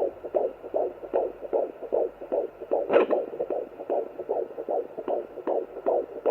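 Fetal heartbeat heard through a Sonoline handheld fetal doppler at 14 weeks of pregnancy: fast, even pulses at about two and a half a second. A brief louder scratch comes about three seconds in.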